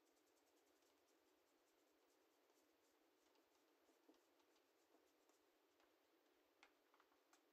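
Near silence: faint room hiss with a few very soft ticks.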